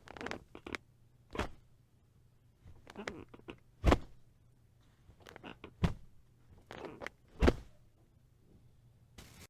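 Rusty bed springs squeaking and creaking in repeated bursts: clusters of small squeaks, each ending in a louder creak, about every two seconds, four times.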